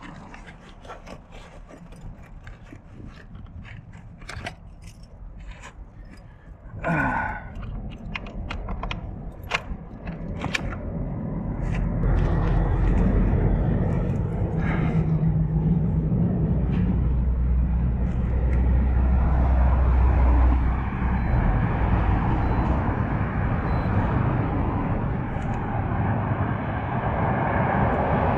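Clicks, knocks and rattles as the electric trike and its bags are handled, with a louder clatter about seven seconds in. From about twelve seconds a loud, steady low rumble takes over and lasts nearly to the end.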